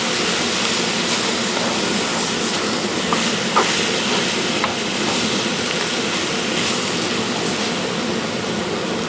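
Rice, ham and pineapple sizzling steadily in a heavy outdoor wok as they are stirred, with a few light clicks from the stirring.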